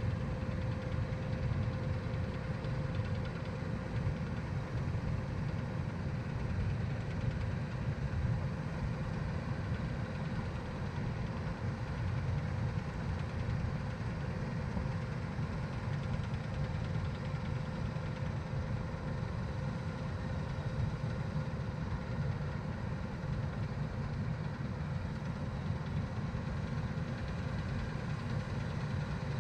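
Heavy farm machine's diesel engine running steadily: an even low rumble with a faint steady whine above it, unchanging throughout.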